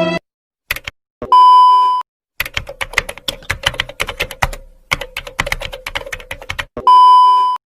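Computer keyboard typing sound effect: a fast run of key clicks lasting about four seconds, with a short break in the middle. A steady high censor-style bleep sounds just before it and again near the end.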